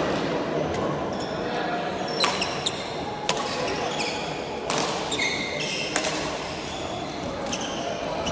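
Badminton rally: a shuttlecock is struck back and forth with rackets, giving about five sharp hits, one every second or so.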